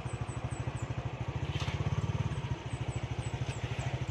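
Motorcycle engine idling with a steady, even low putter while stopped.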